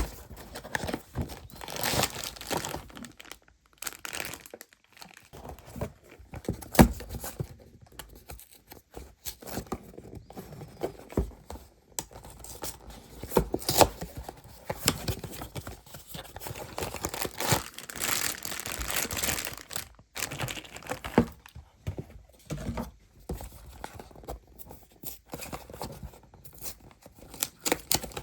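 Parcel packaging being torn open and plastic wrapping crinkled by hand, in irregular bursts of tearing and rustling with a sharp click or snap about seven seconds in.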